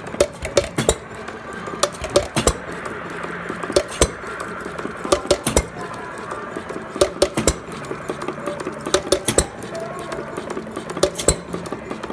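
Small antique stationary engine running, with sharp metallic clicking and clattering in small clusters about every second over a low steady hum.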